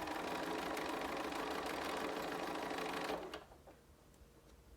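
Domestic sewing machine running at a steady speed, stitching down the length of a narrow folded fabric tube, then stopping about three seconds in.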